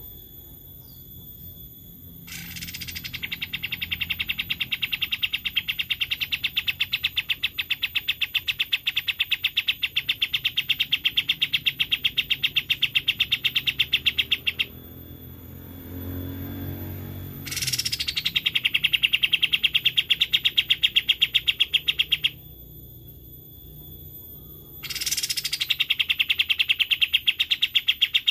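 Kapas tembak bird singing its rapid trill: three long, fast, even rattles of notes, each opening with a quick downward sweep. The first lasts about twelve seconds, the second about five, and the third starts near the end after a short pause. A faint low rumble sits in the first pause.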